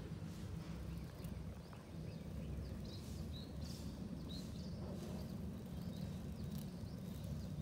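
Outdoor ambience: a steady low rumble with faint, short, high chirps repeating every half second or so.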